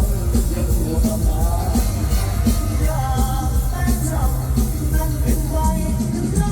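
Loud live mor lam band music with a steady, heavy bass beat and a wavering sung melody over it.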